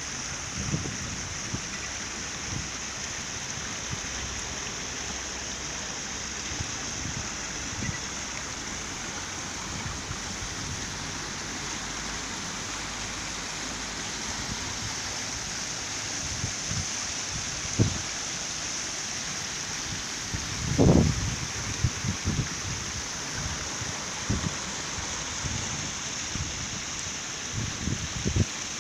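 Water of a stepped fountain cascade running over stones, a steady hiss, heard through a smartphone's microphone. A few low thumps break in, the loudest about two-thirds of the way through.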